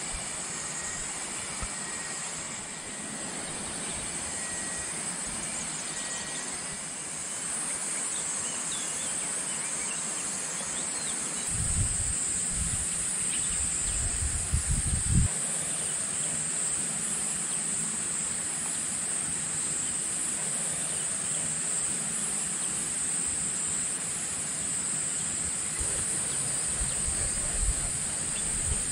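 Steady high-pitched drone of insects over rural outdoor ambience, with low rumbles a little before halfway and again near the end.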